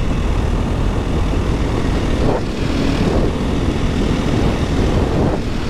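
Supermoto motorcycle engine running steadily at road speed, heard from the rider's position with wind rushing over the microphone. The engine note shifts briefly a couple of times.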